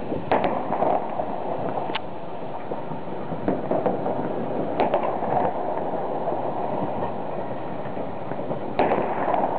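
Many distant aerial fireworks going off: a continuous crackling din with separate sharp bangs, the loudest near the end.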